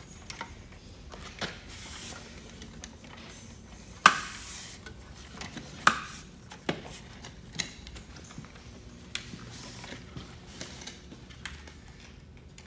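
Clicks and clacks from a Milwaukee Rocket tower light's telescoping mast being pulled up and its sections locking. The loudest is a sharp metallic clack with a brief ring about four seconds in, followed by another near six seconds and several lighter clicks.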